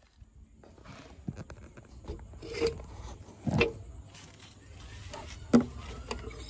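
A few scattered knocks and thumps over a low rumble, the strongest about three and a half seconds in and another sharp one near the end.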